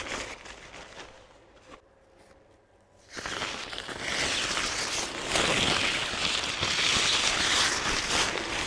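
A tarp rustling and crinkling as it is handled and put up. It starts suddenly about three seconds in, after a quiet stretch with a few faint clicks.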